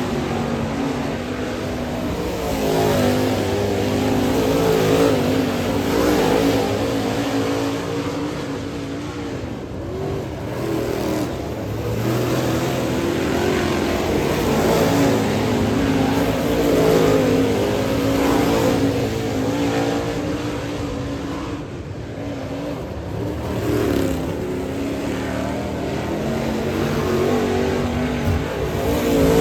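Dirt late model race car V8 engines running hard, the pitch rising and falling again and again as they accelerate down the straights and lift for the turns.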